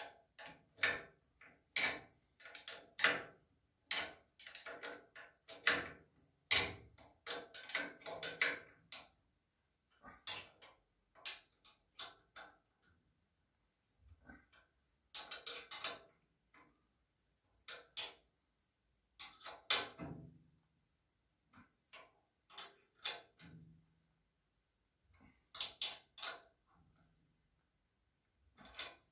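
Combination wrench turning the nuts that hold a swivel caster's steel mounting plate: irregular runs of short metallic clicks and clinks with brief pauses between them.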